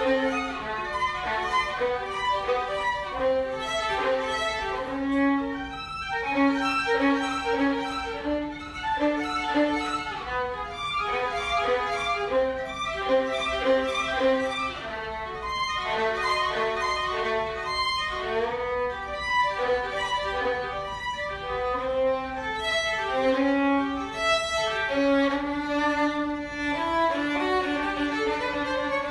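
Instrumental music: a melody of quickly changing notes over held lower notes.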